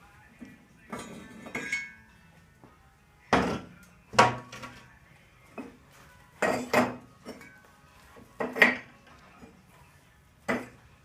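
Hard objects clinking and clattering as a propane forge around an anvil is opened up by hand, in separate bursts about every two seconds, often two knocks close together.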